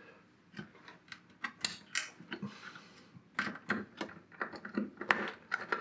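Screwdriver driving small screws into a metal preamp chassis: a run of irregular small metallic clicks and ticks. They are sparse at first and come thicker from about three seconds in.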